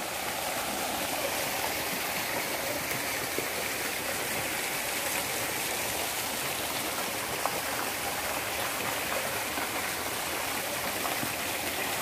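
Flowing water rushing steadily and continuously.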